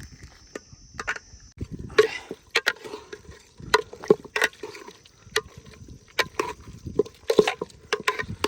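Metal spoon knocking and scraping against a metal cooking pot, in irregular clanks, as ginger-garlic-chili paste is added and stirred into chicken.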